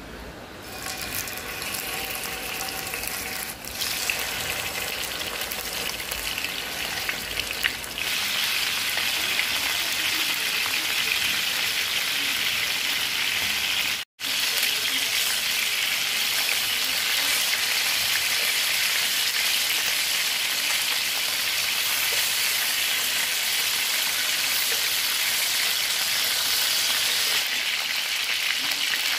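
Chicken wings sizzling in hot oil in a pan: a steady frying hiss that grows louder about eight seconds in, with a break of an instant about halfway.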